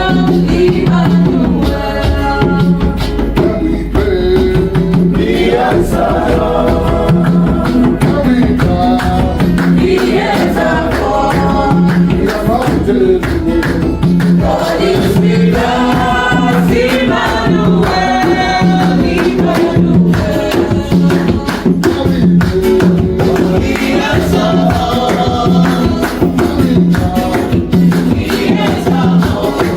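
Gospel worship music: voices singing over a steady, even beat.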